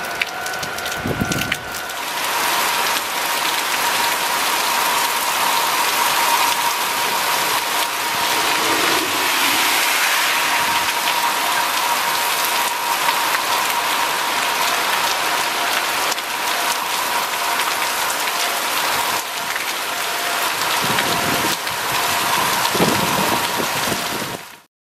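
Heavy rain pouring down on a road and paddy fields, a dense steady hiss of downpour.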